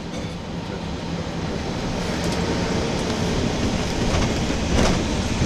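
Steady rumble and rattle of a moving vehicle heard from inside its cabin, slowly growing louder, with a few faint clicks.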